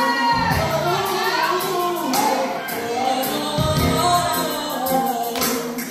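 Gospel music with a singing voice, accompanying a mime performance.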